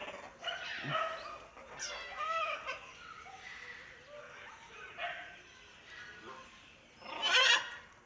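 Pair of green-winged macaws calling: varied, bending chattering calls over the first few seconds, a few short calls later, then one loud harsh squawk about seven seconds in.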